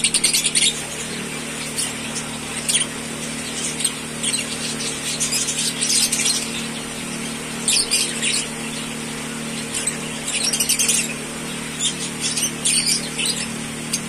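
Fischer's lovebirds chirping in clusters of short, high-pitched calls every second or two, over a steady low hum.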